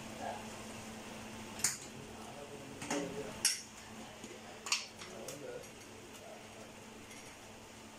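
A handful of sharp clinks of cookware, including a glass pot lid being set down on a gas stove's metal grate, about five in the first six seconds over a faint steady hum.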